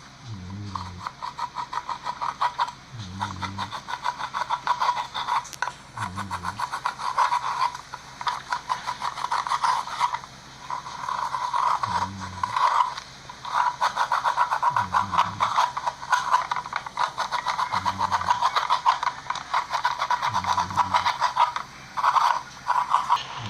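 Slime being squeezed and worked by hand, giving a dense run of rapid sticky clicks and little pops that come in swells. A short low tone sounds about every three seconds under it.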